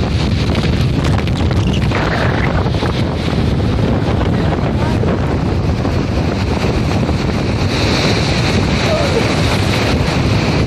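Wind buffeting the phone's microphone in a steady low rumble, over the continuous rush of surf washing up the beach.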